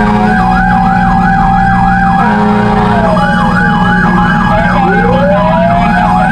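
Fire truck sirens sounding together: one on a fast yelp at about four sweeps a second, another winding slowly down and back up near the middle, over the steady drone of a truck engine.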